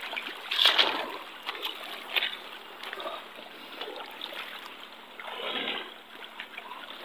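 Feet wading through shallow water: irregular splashes and sloshing, the loudest about a second in.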